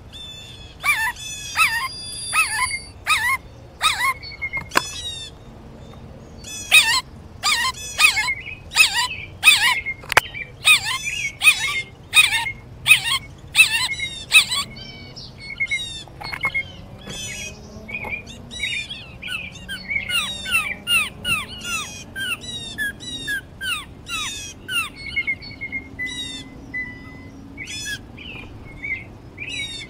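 Footsteps crunching on dry leaf litter and twigs at walking pace, with birds chirping and singing short falling notes.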